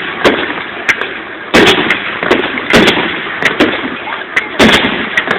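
Fireworks finale barrage: aerial shells bursting in quick succession, about two sharp booms a second, with crackling between them.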